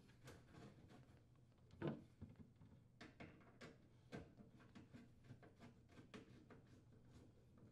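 Faint tool and metal handling: one short knock about two seconds in, then a run of light, irregular clicks as a nut driver turns the screw of a worm-gear band clamp on the sheet-metal vent duct.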